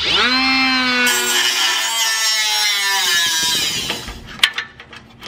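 Ryobi cordless cutoff wheel tool spinning up with a quick rising whine, then cutting into the exhaust pipe ahead of the catalytic converter, its pitch sagging slowly under load. It stops about four seconds in, followed by a few sharp clicks and knocks.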